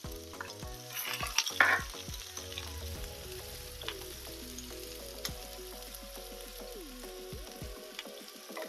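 Chopped shallots and jalapeño sizzling in hot olive oil in a cast iron skillet. The sizzle flares loudly about a second in as the diced jalapeño goes into the pan, then settles into steady frying while a wooden spoon stirs the pan with small scraping clicks.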